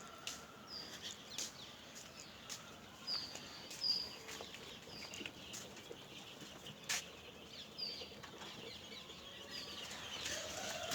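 Young chicks peeping in short, high, slightly falling chirps, roughly one every second, with scattered sharp taps among them.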